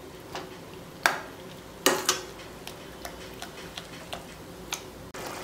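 A metal spoon stirring thick masala paste in a stainless steel pan, knocking and scraping against the pan in irregular clicks, the loudest two about one and two seconds in.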